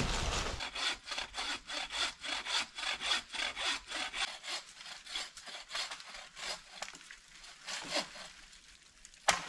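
Hand saw cutting through wood in quick, even back-and-forth strokes, about four a second, with a faint high ringing tone under the first few seconds. The strokes grow fainter and stop, and a single sharp knock follows just before the end.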